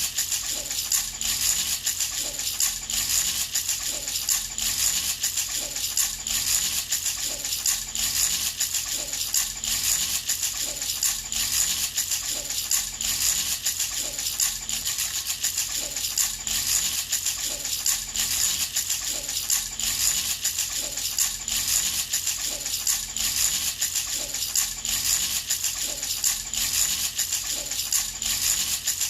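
Baby rattle being shaken in a steady, even rhythm, a bright rattling with each shake.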